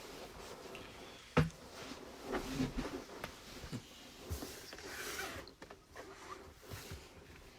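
Handling noise: a sharp knock about a second and a half in, then rustling and several softer knocks, as things are moved about close to the microphone.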